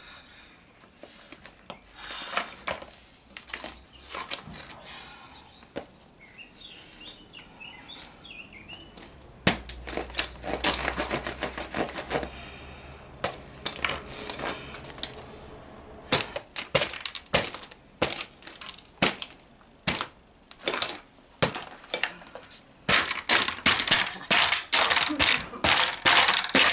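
A 1/5-scale radio-controlled car being smashed: sharp blows with plastic cracking and crunching. The strikes come scattered at first, then in quick runs, thickest near the end.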